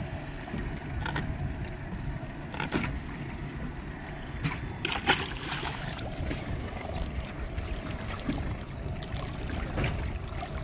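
Splashing and sloshing as a large jack is lowered over a boat's side and held by the tail in the water, over a steady wash of water and wind. Several sharp splashes stand out, the loudest about five seconds in.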